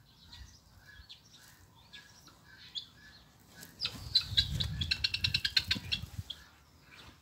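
Sheep's fleece being torn off by hand: a quick run of crisp crackling tears starting about four seconds in and lasting about two seconds, over muffled rustling as the sheep shifts.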